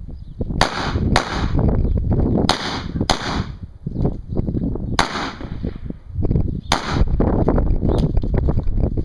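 Pistol shots fired at competition pace, about eight in all. The first four come as two quick pairs about half a second apart, the rest with longer, uneven gaps.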